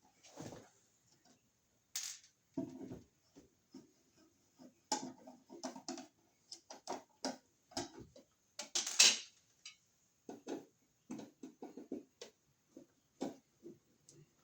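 Irregular clicks, taps and small clatters of a screwdriver, screws and a plastic cover plate as a wall outlet is taken off its electrical box, with the loudest rattle about nine seconds in.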